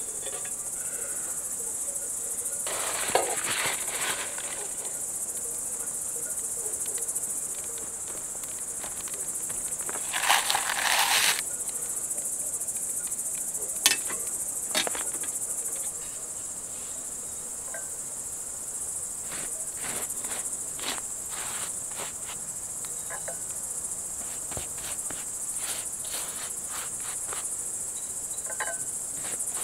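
Crickets chirring steadily in a dense, high-pitched chorus. Over it come a few short knocks and scrapes of handling, the loudest about ten and fourteen seconds in.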